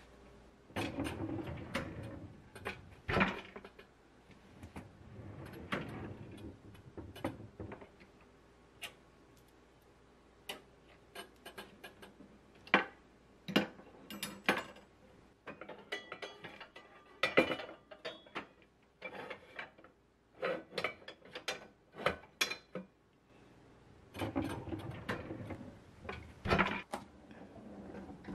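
Kitchen drawers sliding open and shut on their runners, with metal pots, pans and lids knocking and clinking as they are handled. There are many separate sharp knocks.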